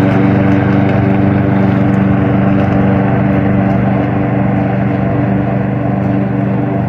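Robotic lawn mower's engine running steadily at constant speed as the mower drives itself on autopilot, getting slightly quieter as it moves away.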